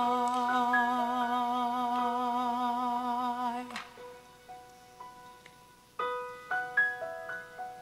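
Soft keyboard music: a held chord with a wavering vibrato stops about four seconds in, followed by sparse single piano notes that ring and fade.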